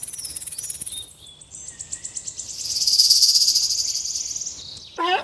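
Insects trilling: a fast, evenly pulsed high-pitched trill, first very high, then a second, lower trill starting about a second and a half in that is loudest around the middle, with a few short chirps early on.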